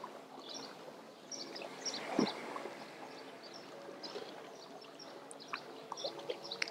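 Quiet lakeside ambience: faint scattered bird chirps over a low steady hum, with one soft knock about two seconds in.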